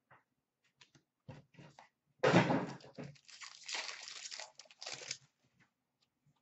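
Trading card pack wrapper torn open and crinkled, with cards handled: a few short rustles, then a louder tearing crinkle about two seconds in lasting around a second, and more rustling until about five seconds in.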